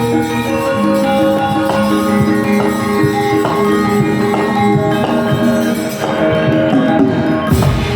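Javanese gamelan ensemble playing, ringing struck metallophone notes over steady held tones. A loud low thump sounds near the end.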